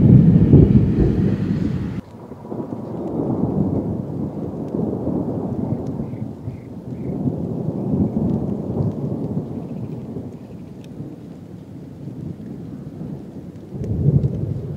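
Thunder from a departing thunderstorm: low rolling rumbles, loudest at first, dropping sharply about two seconds in, then slowly swelling and fading, with a fresh swell near the end. Light rain falls throughout.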